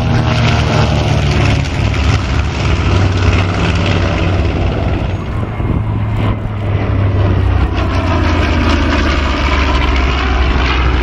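B-25J Mitchell bomber's two Wright R-2600 Twin Cyclone radial engines running as it flies past, a deep steady drone with propeller rush. The tone sweeps as the aircraft moves across the sky, most noticeably near the start and again near the end.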